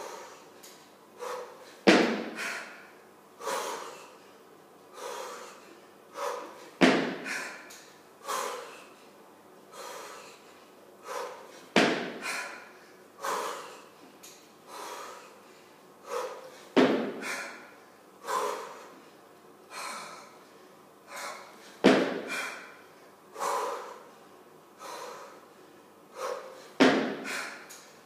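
Hard, rhythmic breathing of a woman doing 18 kg kettlebell jerks: short forceful exhales about every second and a half. A sharp knock comes once per rep, about every five seconds, six times, matching a pace of 12 reps a minute.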